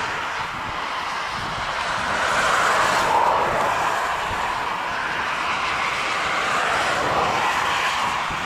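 Steady rushing noise of distant jet aircraft engines, swelling slightly a couple of seconds in and again near the end.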